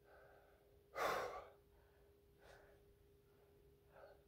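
Heavy breathing of a person straining to hold a plank: one loud exhale about a second in, then two fainter breaths, over a faint steady hum.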